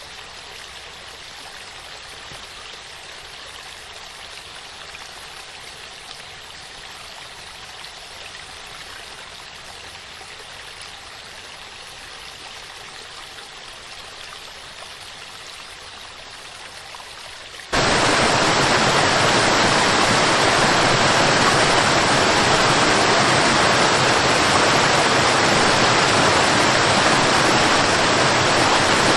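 Waterfall: steady rushing water. About 18 seconds in it cuts abruptly to a much louder, fuller sound of falling water that then holds steady.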